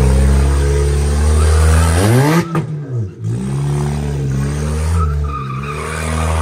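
Ford Fusion sedan's engine revving high and holding while the front wheels spin on wet, muddy concrete. About two seconds in the revs fall sharply and the engine briefly drops away, then the revs climb back up and hold high again with the wheels spinning.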